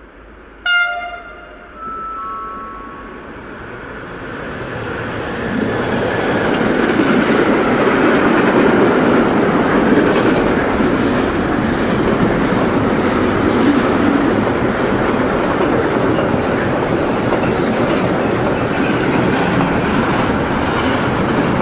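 Freight train horn: a short loud blast about a second in, then a longer blast that steps down in pitch. The train then passes close by, its long string of covered freight wagons rolling past with a steady, loud wheel-on-rail noise that builds over the first few seconds.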